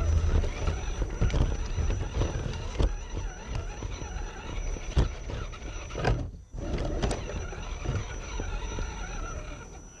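Radio-controlled off-road truck crawling over rough ground: a small electric drive whining thinly under an irregular crunching and clicking of tyres on rocks and gravel.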